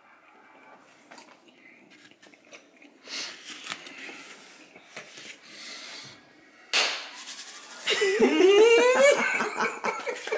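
A person laughing: breathy chuckles a few seconds in, then a louder laugh that rises in pitch near the end.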